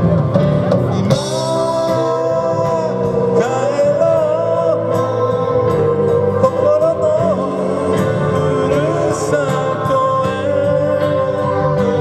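A live band playing: electric guitars, drums and keyboard, with a sustained melodic lead line over the accompaniment.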